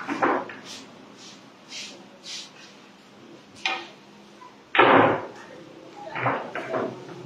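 Pool balls clicking and knocking on a pool table during play. There is a sharp ball-on-ball click about three and a half seconds in, and the loudest, heavier knock comes about a second later.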